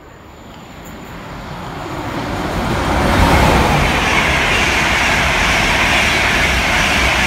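LNER InterCity 225 electric express, a Class 91 locomotive with Mk4 coaches, passing through at speed. The rushing rumble of wheels on rail grows over the first three seconds as it approaches, then holds steady and loud as the coaches go by.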